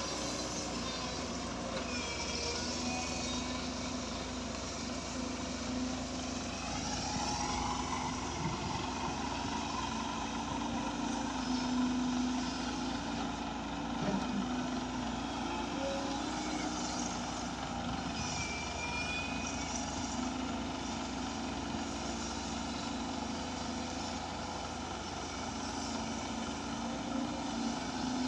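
A heavy construction machine's diesel engine running steadily under work. Its pitch rises once, about seven seconds in, and a few brief high squeals come through.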